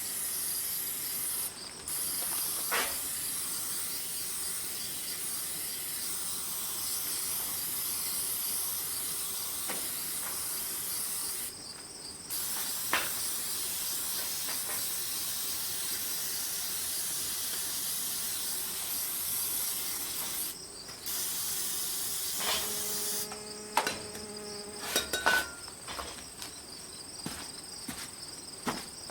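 Insects, crickets or cicadas, chirping as a steady high-pitched buzz that drops out briefly a few times. Near the end come a few knocks and a short pitched tone.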